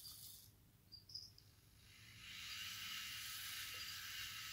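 Small hobby servos in a robot replica give a few short, faint, high chirps as they move. From about two seconds in, a steady high hiss rises and holds.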